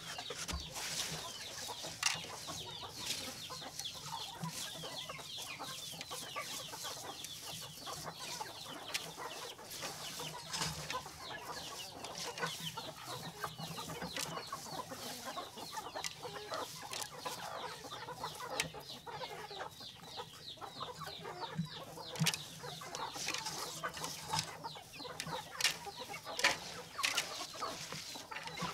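Chickens clucking steadily as a flock, with many short calls one after another. Hands rustle through a moist mash of sprouted grain and rice in a plastic basin.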